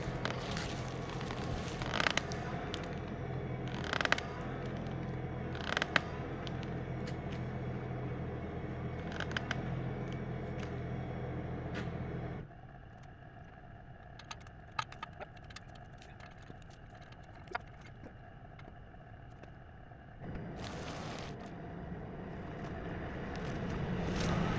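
Tractor engine running steadily, with scattered clanks and scrapes as logs are dragged out on a cable. About halfway through the engine sound drops away abruptly to a quieter stretch of scattered clicks, then returns and grows louder near the end.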